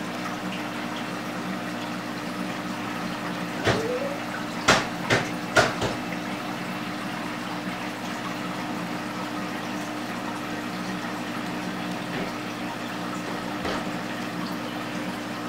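Aquarium pump and filter running: a steady hum under the sound of moving water. A few sharp knocks sound between about four and six seconds in.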